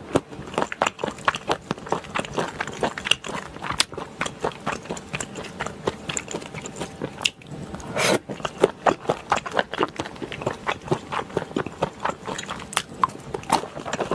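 Close-miked wet chewing and lip-smacking of a mouthful of spicy gopchang stir-fry with Chinese glass noodles: a steady run of quick sticky mouth clicks. There is a short pause, then a brief louder burst about eight seconds in.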